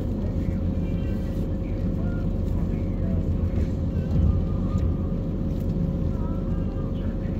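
Car interior noise while creeping in slow traffic on a wet street: a steady low engine and road rumble with a thin steady hum over it.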